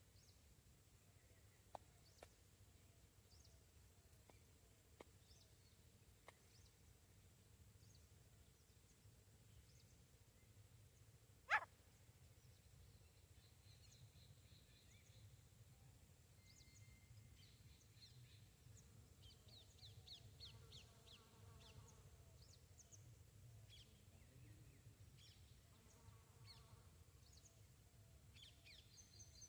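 Faint outdoor ambience with small birds chirping weakly in the distance and a few soft ticks. One short, sharp click or knock stands out about twelve seconds in.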